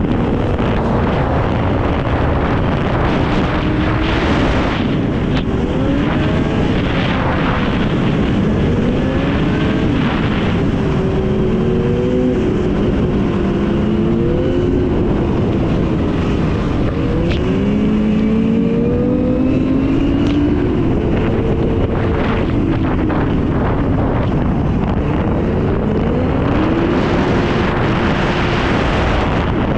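Yamaha Apex snowmobile's four-cylinder four-stroke engine running at speed, its pitch rising and falling again and again as the throttle is worked, over a steady rushing noise.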